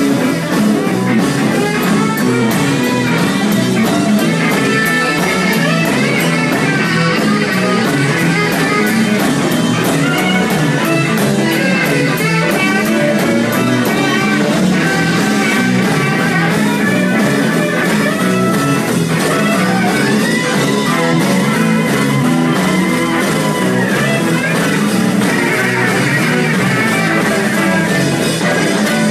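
Live rock band playing, with electric guitar to the fore over a steady drum beat.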